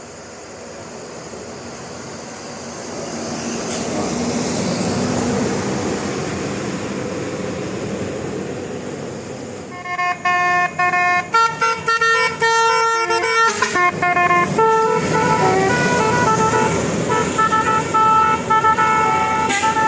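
A bus draws near, its engine and road noise swelling, then about halfway through it plays its multi-tone basuri telolet horn: a quick tune of several horn notes in short phrases, stopping and starting.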